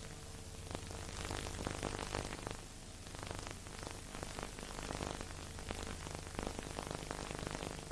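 Steady hiss with dense, irregular crackling and a low steady hum: the surface noise of an old, worn recording, with no music or voices.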